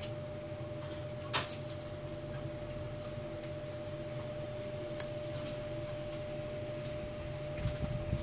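Small clicks from handling a smartphone's display assembly and its flex-cable connector: one sharp click about a second and a half in, a lighter tick around five seconds, and a few soft taps near the end, over a steady electrical hum.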